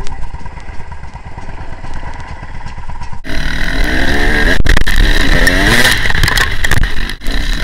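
Dirt bike engine running low for about three seconds. After an abrupt cut it is much louder, revving up and down as the bike rides along a trail.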